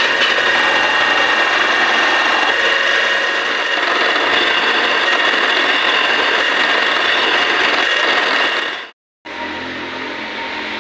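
Milling machine end mill cutting into a round metal bar held in a vise: a steady, high-pitched cutting noise with a grinding rasp over the running spindle. About nine seconds in it cuts off abruptly, then the machine runs on more quietly.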